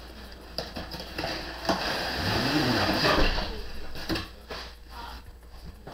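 Cardboard box of a Beyblade Destroyer Dome set being opened by hand: handling rustles and small clicks of the packaging, with a louder scraping of cardboard against cardboard about two seconds in that lasts about a second and a half.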